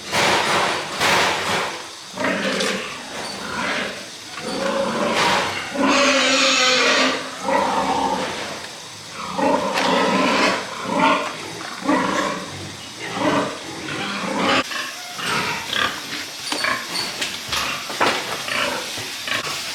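Pigs grunting and squealing in a run of short calls, with a longer, shriller squeal about six seconds in.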